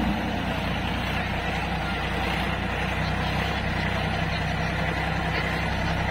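Sonalika tractor's diesel engine running steadily under load as it pulls a trailer heaped with mud through soft ground.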